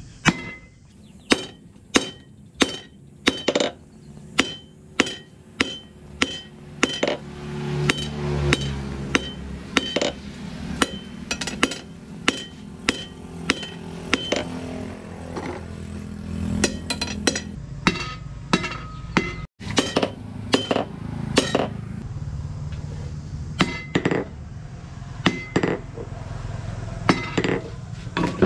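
A hammer strikes red-hot rebar on a steel anvil in a steady rhythm of ringing metal blows, about two a second, drawing the bar's end out to a point. A low hum runs under the blows for part of the time.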